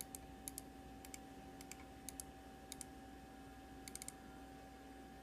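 Faint, sharp clicks at a computer, mostly in quick pairs like double-clicks, about one pair every half second, with a short flurry of clicks near the end, over a steady faint electrical hum.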